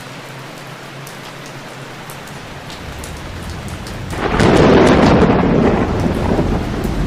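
Heavy rain falling steadily. A thunder rumble builds from about two and a half seconds in, then breaks loud about four seconds in and keeps rolling to the end.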